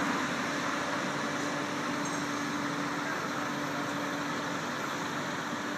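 Steady engine and traffic noise with a faint hum that fades out about three seconds in.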